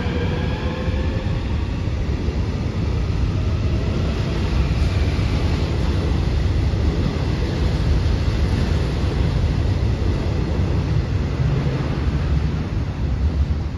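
Seoul Subway Line 3 electric train passing through the station without stopping: a steady, loud rumble of wheels on rails, with a faint rising motor whine at the start. The sound drops away sharply at the end as the last car clears the platform.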